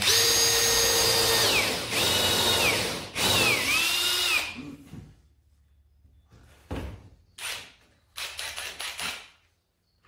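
Cordless drill boring into hardwood in three runs over the first few seconds: a steady high whine that winds down, then two shorter runs whose pitch dips as the bit bites and recovers. A few short knocks follow near the end.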